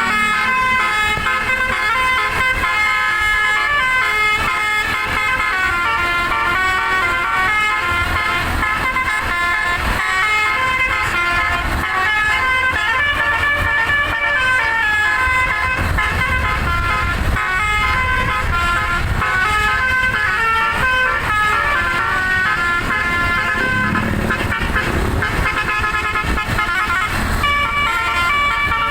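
Telolet musical air horn playing quick, unbroken runs of notes, the tune stepping from pitch to pitch several times a second from its horn-control module. A low rumble joins it from about halfway.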